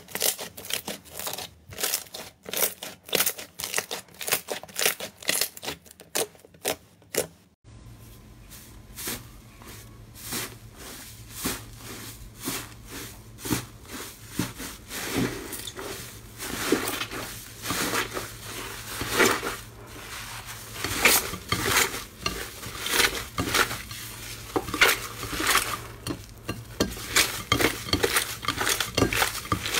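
Hands kneading, stretching and squishing slime in a plastic dish, making a quick run of wet clicks and pops. A low steady hum comes in underneath about eight seconds in.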